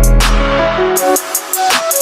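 Background electronic music with a deep bass line and a steady beat of hi-hat-like hits; the bass drops out about halfway through.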